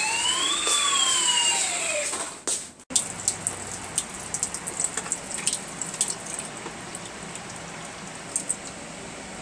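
RC toy fire truck's electronic siren sounding one rise-and-fall wail for about two seconds. It then gives way to a tap running into a sink, with small splashes and ticks as water is poured through a funnel into the truck's tank.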